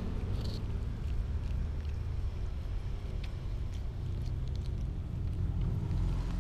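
Cat chewing and licking rice close to the microphone, a few faint wet clicks, over a low steady rumble.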